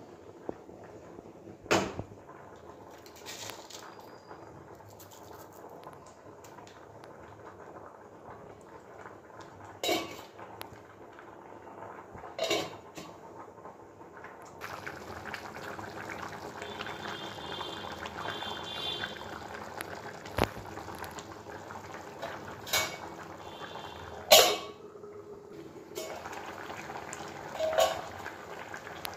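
Fish curry bubbling in a pan on the stove, the bubbling growing denser in the second half, with about six sharp clanks of a steel lid and utensils against the pan, the loudest near the end.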